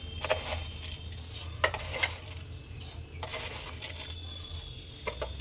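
A steel spoon clinking against metal as spoonfuls of sugar are tipped into water in a pan: a handful of sharp clinks spread about a second apart, over a steady low hum.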